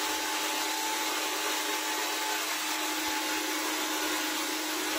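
Handheld hair dryer running steadily while blow-drying hair: a constant rush of air with a steady motor hum under it.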